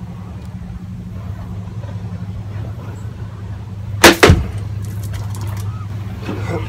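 An unokubi-zukuri sword cuts through a water-filled plastic bottle about four seconds in: a sharp, loud crack followed a fraction of a second later by a second one, over a steady low background rumble.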